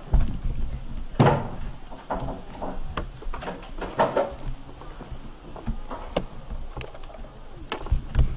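Mobility scooter moving over uneven stone flagstones, with irregular knocks and rattles as it bumps along, a few heavier thuds, and a low rumble under them.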